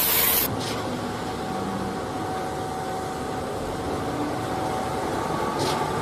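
Concrete mixer truck running, a steady mechanical noise with a faint steady whine, starting abruptly about half a second in.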